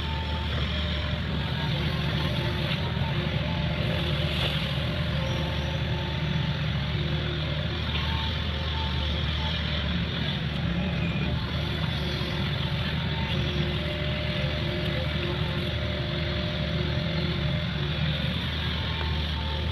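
Excavator's diesel engine running steadily while digging out a ditch, a constant low drone with faint higher tones coming and going.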